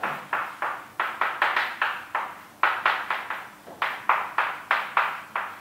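Quick strokes of writing or drawing on a board: about twenty short taps and scrapes in quick clusters, with brief pauses between the clusters.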